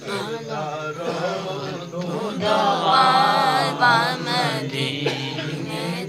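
A man chanting devotional Punjabi verse unaccompanied, drawing out long wavering notes, loudest about halfway through.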